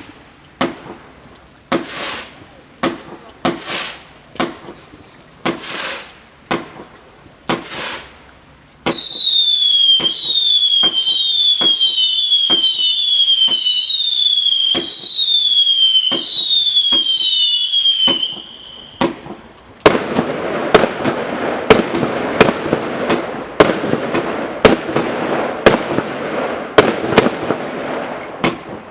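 Dominator 90-shot variety 1.4G fireworks cakes firing. First comes a string of single shots about one a second. Then about nine seconds of overlapping whistles, each falling in pitch, and finally a rapid volley of sharp bangs with crackle.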